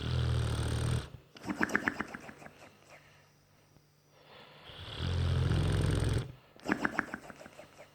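Bullmastiff snoring in two rounds about five seconds apart. Each round is a low, droning snore of about a second, followed by a quick run of fluttering breath.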